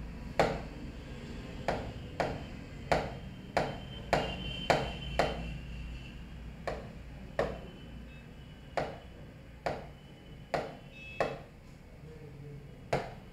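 Light, sharp taps on a touchscreen display, irregular, about one a second, over a faint steady hum.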